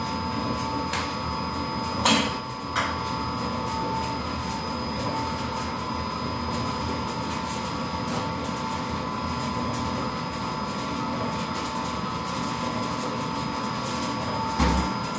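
Drum coffee roaster running with a steady hum from its drum, fan and burner, while Ethiopian coffee beans pop in scattered sharp cracks: first crack under way and building toward a heavy rolling crack. A louder knock comes about two seconds in.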